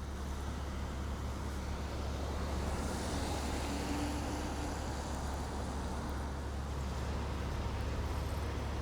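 Urban street traffic: a steady low rumble, with a vehicle passing that swells and fades about three seconds in.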